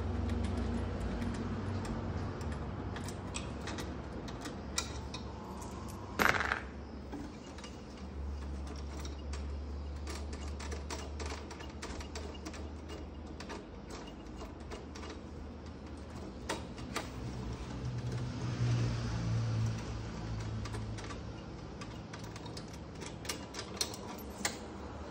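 Scattered metallic clicks and light knocks of hand tools working parts loose on a refrigerator compressor, with one louder knock about six seconds in, over a low steady hum.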